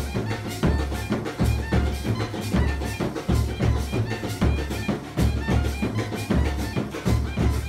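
Music with a steady drum beat, deep bass pulses and a melody line over it.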